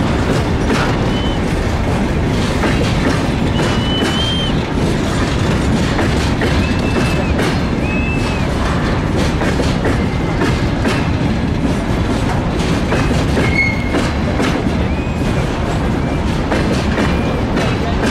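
Train wagons rolling past at low speed, the wheels clattering over rail joints in a steady run of clicks, with several short high wheel squeals scattered throughout.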